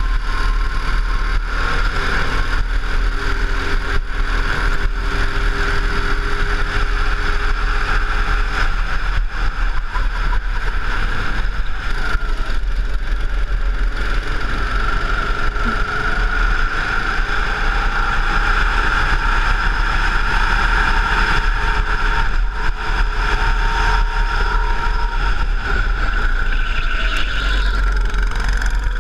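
Go-kart engine running at racing speed, heard from the driver's seat, its note shifting up and down as the kart brakes for and accelerates out of corners, over a constant low rumble.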